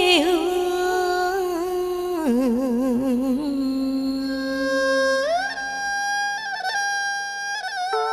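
Instrumental interlude of a Vietnamese folk-style song. A lead melody wavers with vibrato and slides between notes, gliding up to higher held notes about five seconds in.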